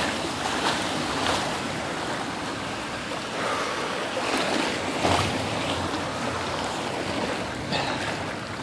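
Rushing floodwater: a steady noisy wash of water, with a few brief louder splashes.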